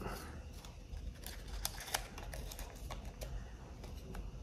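Small irregular clicks and light paper crinkling from a double-edge razor blade being handled and slid into its paper wrapper.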